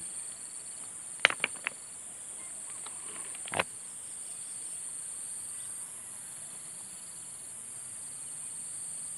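Insects chirring steadily at a high pitch, with a second, lower trill that comes and goes in short spells. A few sharp clicks sound about a second in, and another one comes shortly before the four-second mark.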